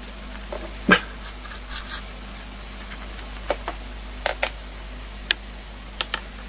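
A dog making a string of short, sharp sounds, the loudest about a second in, then several brief ones, some in quick pairs.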